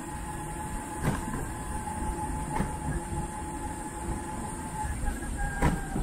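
Mobility scooter rolling along paving, its electric drive whining steadily over a low rumble, with a sharp knock every second and a half or so as the wheels cross joints in the surface.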